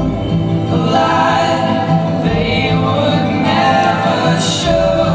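Choral music accompanying the dance: many voices singing sustained chords, with a deep low pulse about every two and a half seconds.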